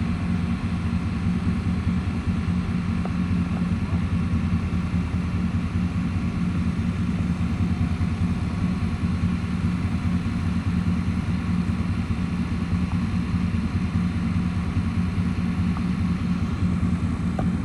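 A vehicle engine running steadily at an even idle, with no change in speed.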